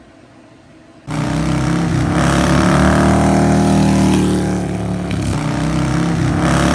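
Motorcycle engine running and revving, starting suddenly about a second in, with its pitch shifting up and down in steps.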